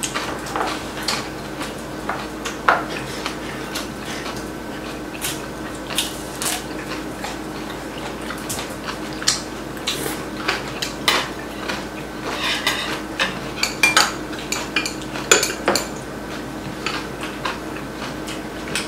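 Metal chopsticks and spoons clinking and tapping against ceramic bowls and plates while eating, a string of irregular light clicks.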